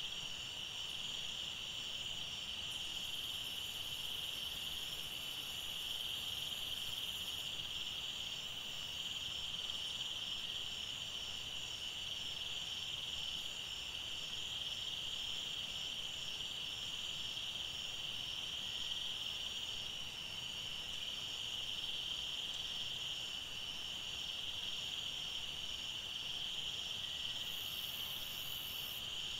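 A steady, high-pitched chorus of forest insects that runs without a break, with a still higher, shriller layer joining for a few seconds about three seconds in and again near the end.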